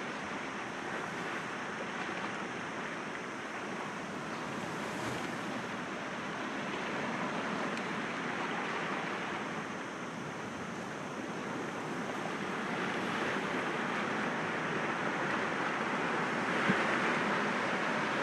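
Sea waves washing in and breaking gently against rocks: a continuous rushing wash that swells and eases, louder over the last few seconds, with one brief sharp click near the end.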